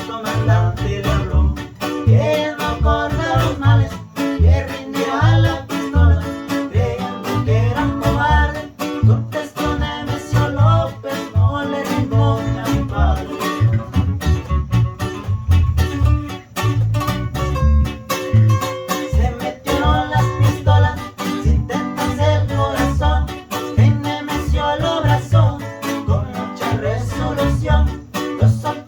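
Guitar band playing a lively tune: a plucked guitar melody runs over strummed chords and a bouncing bass line.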